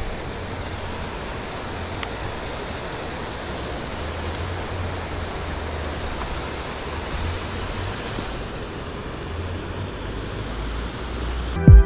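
Steady rushing noise of wind on the microphone, with an uneven low rumble. Loud music with drums cuts in right at the end.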